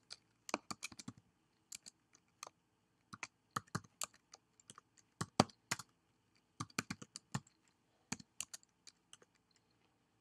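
Typing on a computer keyboard: scattered keystrokes in short bursts with pauses between, as a directory path is typed out at a command line.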